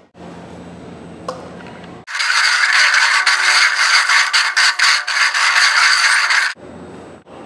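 Red plastic party cups slid and shuffled quickly across a concrete floor, a dense run of scraping and clattering that starts about two seconds in, lasts about four and a half seconds and stops abruptly.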